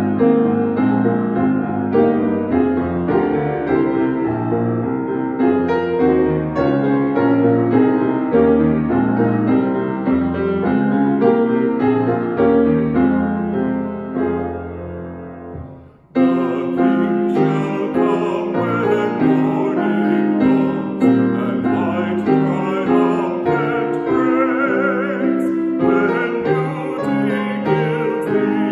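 Hymn played on piano, fading out a little past halfway. Then the music starts again abruptly, and a man sings the hymn with piano accompaniment.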